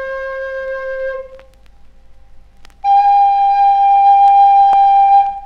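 A flute-like pipe playing single long, steady notes: the first note stops about a second in, and after a short pause a higher, louder note is held for about two and a half seconds. These are two of the three rising notes of the little reed pipe.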